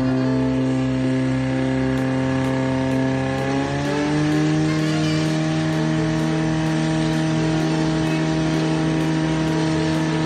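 Portable fire pump's engine running hard and steady; about four seconds in, its pitch rises over roughly a second and then holds higher, as the throttle is opened to drive water through the hose lines to the nozzles.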